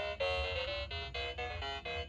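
Electronic melody of quick, short beeping notes that step up and down, over a steady low hum.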